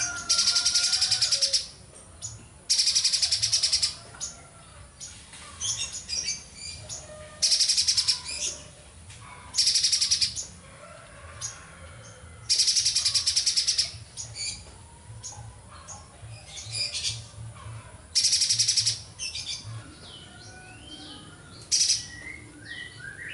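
Spiderhunter singing vigorously: loud, rapid, high buzzing trills about a second long, repeated every two to four seconds, with softer chirps and short sliding whistles between them.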